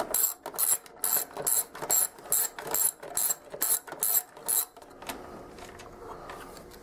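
Ratchet wrench clicking in steady strokes, about three clicks a second, as it backs a nut off a small engine cover; the clicking stops about five seconds in.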